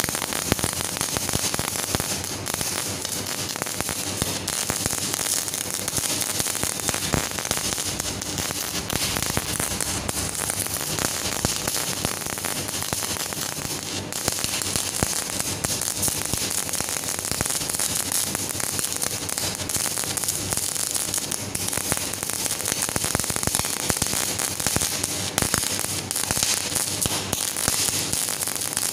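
CO2-shielded MAG (MIG) welding arc burning steadily on a corner joint, giving a dense, unbroken crackling with flying spatter.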